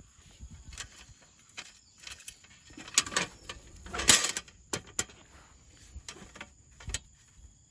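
Camp gear being handled: scattered light clacks and knocks, with a brief rustle about three seconds in and another about four seconds in.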